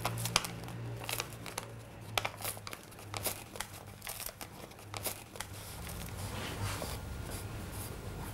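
Thin Japanese tissue paper rustling and crinkling as fingers handle it, in a string of small irregular crackles, over a low steady hum.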